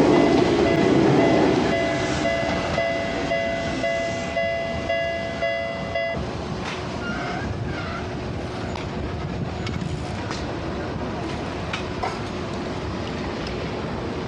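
A Tokyu train passes over the level crossing, its wheels clattering on the rails and fading over the first two seconds. The crossing's warning bell rings in a steady repeating pattern, then cuts off suddenly about six seconds in, leaving street noise.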